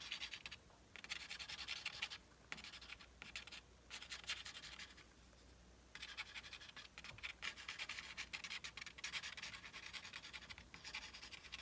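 Pastel pencil scratching on black drawing paper in quick, short strokes, coming in runs with brief pauses between them and a quieter stretch of about a second near the middle.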